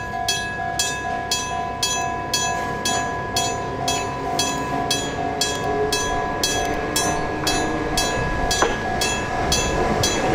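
Level-crossing warning bell clanging steadily about twice a second as an Enoden 2000 series electric train approaches, the train's running noise growing near the end.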